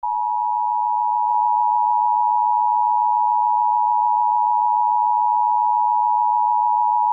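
Steady electronic alert tone: a single unbroken pitch just under 1 kHz, starting abruptly. It is the attention signal of an emergency-broadcast warning, sounding before the spoken message.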